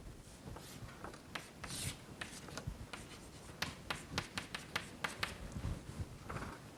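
Writing and drawing by hand: a faint, irregular run of light taps and scratchy strokes from a pen or chalk.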